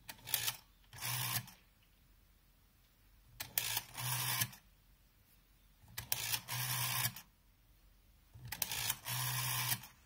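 Rotary dial of a GPO 746 telephone being dialled by hand four times. Each digit gives a short scrape as the dial is wound round, then a longer whirr as it spins back on its governor, sending the pulse train.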